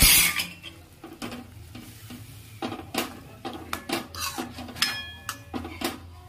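A spoon stirring a thick chickpea curry (chole) in a metal kadai, knocking and scraping against the pan over and over. A loud clank comes right at the start, and a brief metallic ring comes near the end.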